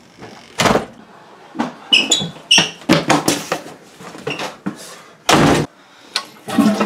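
Door handling: a run of knocks and thumps with a few short squeaks as a door is opened and shut. Near the end the lever of a toilet tank is pressed and the flush starts rushing.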